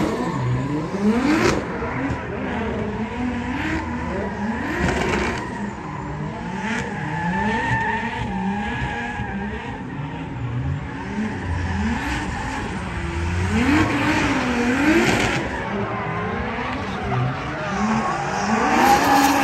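Drift car engines revving up and down again and again, with tyres squealing and skidding.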